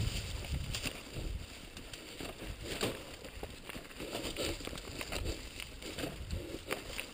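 Mountain bike riding down a leaf-covered dirt trail, heard from a camera on the bike: rolling tyre noise and rattling over bumps, with many scattered sharp clicks and knocks and low thumps.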